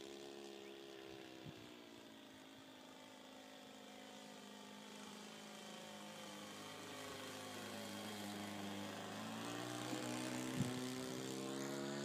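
Radio-controlled model airplane's motor and propeller droning in flight, with a steady buzzing pitch that shifts slightly, growing louder over the second half.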